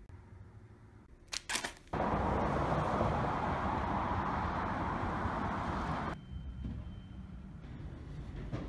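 A couple of sharp clicks, then steady road-traffic noise for about four seconds that cuts off suddenly, leaving a quieter steady indoor hum.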